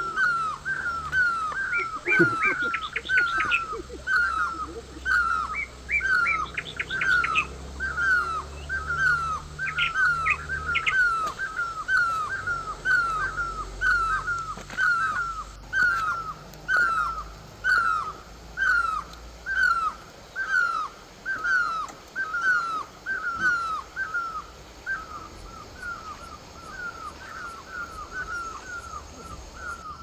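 A bird calling one short downslurred note over and over, about two a second, turning faster and fainter near the end. A second bird adds brief higher chirping runs in the first ten seconds.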